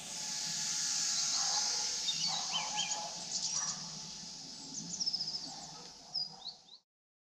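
Small birds chirping in short, scattered calls over a steady outdoor hiss; the sound cuts off shortly before the end.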